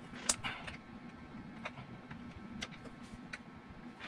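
Screwdriver working out the cover screws of a Westerbeke generator's impeller housing: a few scattered sharp metallic clicks, the first the loudest, over a faint low steady hum.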